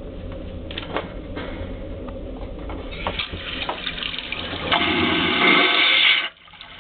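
Cruise ship vacuum toilet flushing after the button is pressed: water noise builds from about three seconds in, becomes a loud rushing whoosh for about a second and a half, then cuts off suddenly near the end.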